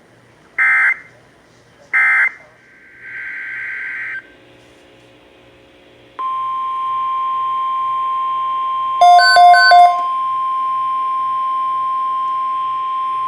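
Emergency Alert System digital data bursts, two short screeching blasts about a second and a half apart. From about six seconds in comes a steady single-pitch attention tone, the 1050 Hz warning alarm tone of NOAA Weather Radio. Three short, louder beeps sound over it about nine seconds in.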